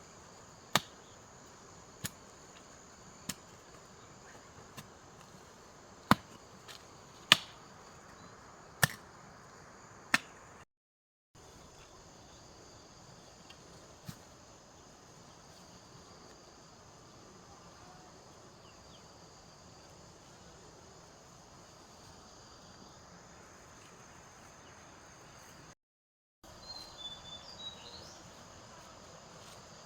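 Steady high chirring of crickets and other insects. Over it come about eight sharp knocks, roughly one every second and a half, during the first ten seconds. A few faint chirps come near the end.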